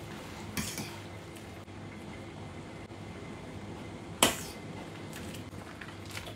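A metal fork clinks against a stainless steel pot while stirring spaghetti in boiling water, with one sharp clink about four seconds in and lighter taps around it, over the steady hiss of the boiling water.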